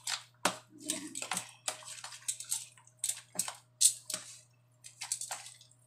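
Metal fork stirring and tossing cold spaghetti with beaten egg and shredded carrot in a dish: wet squishing with irregular clicks of the fork against the dish, the loudest a little under four seconds in.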